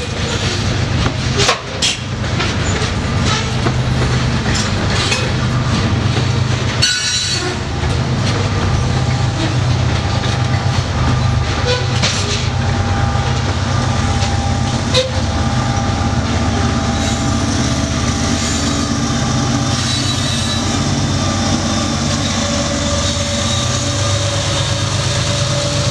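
Covered hopper cars of a sand freight train rolling steadily over a grade crossing, wheels clacking and clanking over the rail joints under a continuous rumble. Near the end a mid-train diesel locomotive, the distributed power unit, rolls past.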